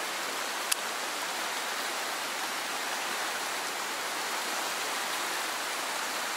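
Fast-flowing river water rushing steadily, with one short sharp click under a second in.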